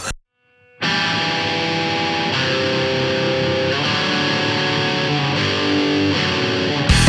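Rock song intro: distorted electric guitar playing held chords that change every second or two, after a brief silence. Near the end a full band with drums comes in.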